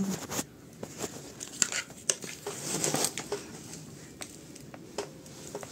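Hands shifting a large succulent and its potting soil in a plastic tub: irregular rustling and scraping of leaves and soil, with a few sharp clicks, two of them close together about two seconds in.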